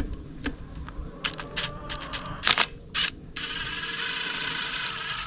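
Metal tools clicking and clinking against a log splitter's hydraulic cylinder while a retaining ring is worked off, followed by a steady hiss of about two seconds that stops abruptly.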